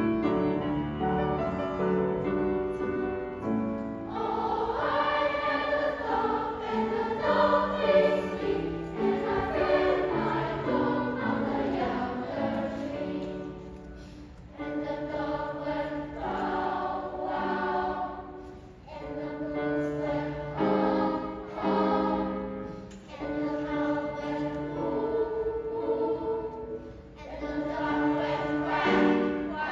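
Children's choir singing, with sung phrases separated by short breaks.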